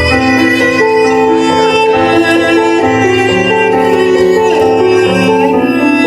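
Solo cello bowed in a slow melody of long held notes.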